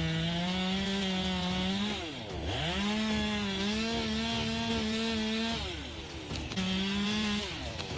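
Two-stroke chainsaw held at high revs in three throttle bursts. The engine note falls away and comes back up about two seconds in, drops again about five and a half seconds in, and ends with a short last burst.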